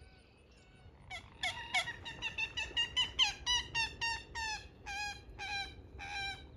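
Common gallinule (common moorhen) calling: a long series of about twenty pitched notes, quick at first and then slowing and spacing out toward the end.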